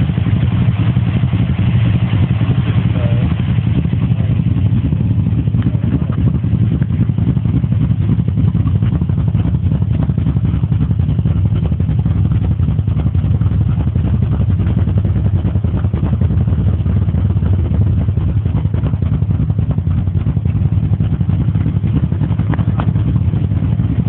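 1984 Chevy truck's 355 small-block V8 idling steadily, its sound sitting mostly low and even.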